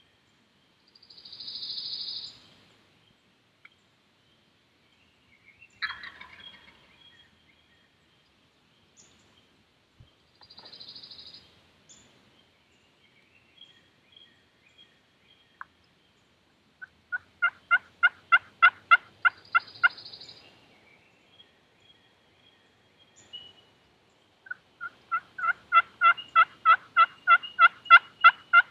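Wild turkeys calling: two runs of evenly spaced yelps, about four a second, the second longer and growing louder toward the end. A few short, breathy hissing bursts and a lone call come in between.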